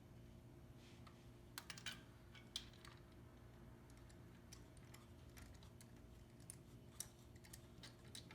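Faint scattered clicks and light taps of hand work on the engine, a handful of them spread over several seconds, over a steady low hum.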